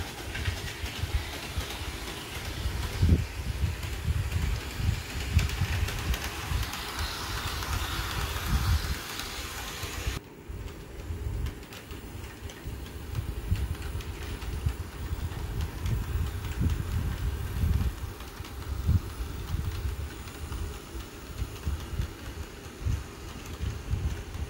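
Model passenger train running around a loop of track: a low, uneven rumble of motor and wheels on the rails. A higher hiss drops away suddenly about ten seconds in.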